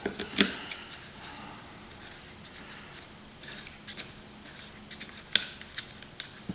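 Screwdriver backing a small screw out of the top of a boiler circulator pump, with light scraping and a few sharp metal clicks.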